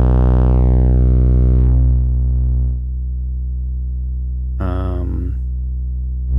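Low test-tone sine wave clipped by a TL071 op-amp boost with one LED and one Schottky clipping diode: a buzzy, asymmetrically distorted steady tone full of harmonics. Over the first three seconds or so the upper harmonics fade away as the clipping is backed off, leaving a duller, cleaner tone.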